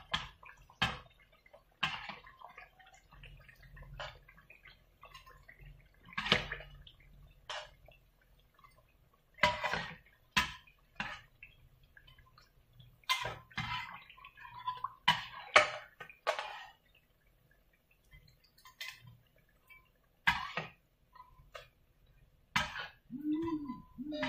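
Metal spatula and wire spider strainer clinking and scraping against a pot of hot oil in irregular knocks, as fried vegetable fritters are lifted out, with the frying oil crackling lightly.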